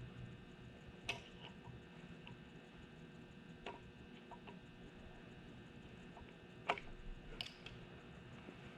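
Scattered light clicks and taps of hand tools and metal engine parts being handled, a few seconds apart, over a faint steady hum. The sharpest click comes about two-thirds of the way through.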